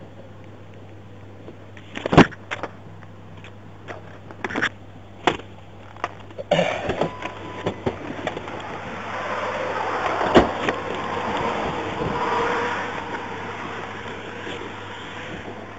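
A handful of sharp clicks and knocks, then road noise from passing traffic, a car rising and fading over several seconds, above a steady low hum.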